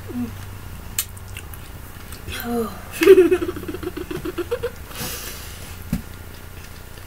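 A boy's wordless vocal reaction to sour candy: a brief voiced sound, then a rapid pulsing laugh-like run lasting about a second and a half that rises in pitch at the end, followed by a breathy exhale. A sharp click comes about a second in, and a knock near the end.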